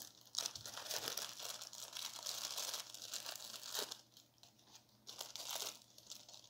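Plastic packaging and bubble wrap crinkling and rustling as a hand rummages through bagged 3D-printer parts. The rustle is busiest for the first few seconds, then dies down, with one short burst again a little after five seconds.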